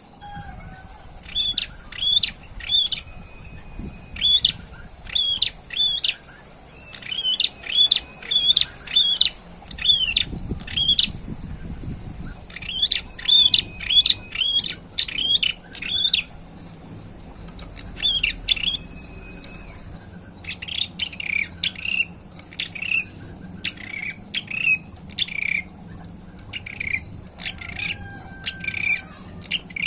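A young male prinia, the red-headed prenjak (prenjak kepala merah), singing in repeated phrases: quick runs of three to seven sharp, high chirps with short pauses between them. Partway through, the phrases turn slightly lower and come closer together.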